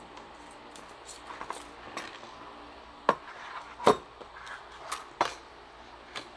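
Hard plastic clicks and knocks as a solar light fixture and its cables are handled. A handful of sharp clicks fall in the second half, the loudest about four seconds in.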